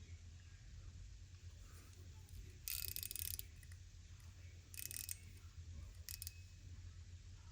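Mechanical push-card fidget toy's ratchet mechanism clicking in three short bursts of rapid clicks, the longest about three seconds in, then two briefer ones, over a steady low hum.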